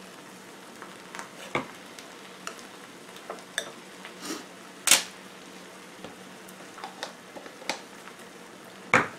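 Spinach and mushroom mixture sizzling softly in a frying pan, with scattered sharp clicks and taps of a small spoon against a glass jar of garlic and the pan. The loudest tap comes about five seconds in.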